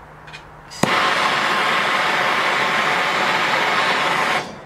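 Handheld gas brazing torch starting with a sharp click about a second in, then a steady hissing flame for about three and a half seconds that cuts off abruptly. It is heating the aluminum tank so the brazing rod will stick.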